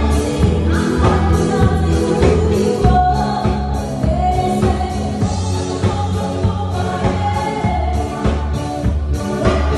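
Live band music: a woman singing into a microphone over electric guitar, keyboard and a steady, bass-heavy beat.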